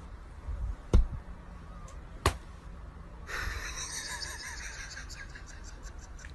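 Two light taps about a second apart, from a hand and a cat's paw meeting on a bedsheet, over quiet room noise.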